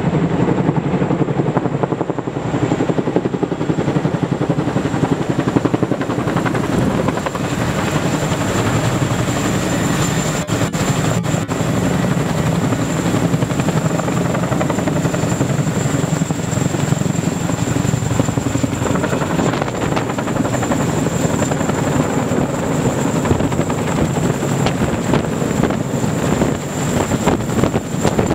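Helicopter running with a steady, fast rotor chop and a thin, steady high whine above it.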